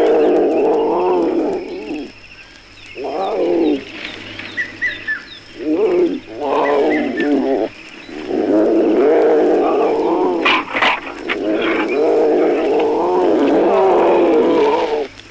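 Lions roaring in long, wavering bouts separated by short pauses, with a few faint high chirps behind them.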